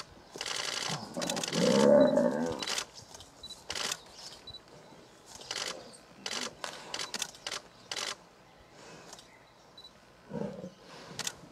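Lion snarling and roaring while a Cape buffalo gores and tosses it. The loudest snarl comes about two seconds in, with a shorter growl near the end. Runs of sharp camera-shutter clicks sound throughout.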